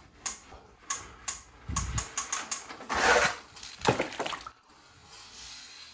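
A few sharp plastic clicks from a toy drop-tower playset, then a die-cast toy monster truck splashing into a plastic tub of water about three seconds in, with a second short splash just after.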